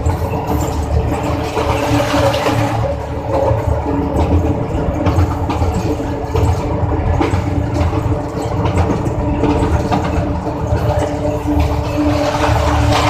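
Diesel locomotive running steadily under way, heard from inside its cab: a constant engine hum over a low rumble, with wheel-on-rail noise as the train rolls along the track.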